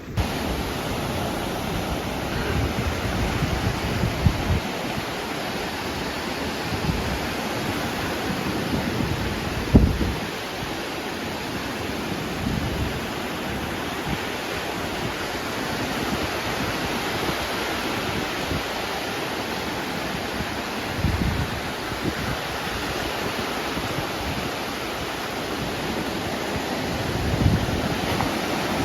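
Steady rush of ocean surf and wind, with gusts of wind buffeting the microphone every several seconds.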